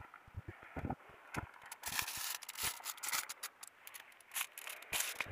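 Dry leaves and grass rustling and scraping, with scattered sharp clicks, as freshly caught fish are handled on the ground and strung on a line.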